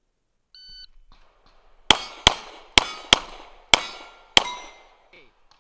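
A shot timer's start beep, then six 9mm pistol shots from a Glock 17 in quick succession, roughly half a second apart. Steel targets ring after the hits.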